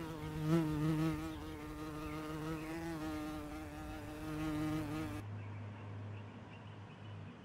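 A flying insect buzzing in a steady drone with a slightly wavering pitch, stopping about five seconds in. A lower, fainter hum continues after it.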